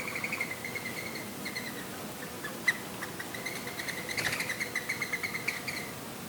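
Two runs of rapid, evenly pulsed high chirping from a small calling animal, the second run longer. A single sharp click comes about halfway through, over the steady hiss of a breeze.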